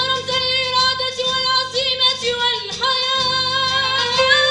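A student vocal ensemble of young women and men singing a song, with notes held and gliding from one to the next.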